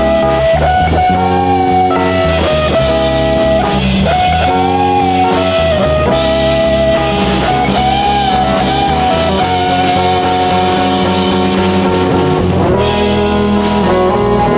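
Instrumental rock band recording: an electric lead guitar plays a melody of long held notes that bend and waver, over bass, a second guitar and drums.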